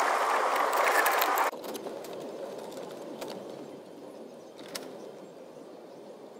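Steady rushing noise that cuts off suddenly about one and a half seconds in. It leaves a faint hiss with a few light clicks of a plastic dashboard trim cover being handled and pressed into place.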